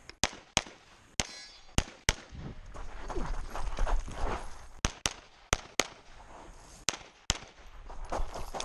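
Pistol fired in a competition stage: about nine shots, mostly in quick pairs, with a pause of over two seconds near the middle while the shooter moves between positions, filled with movement noise.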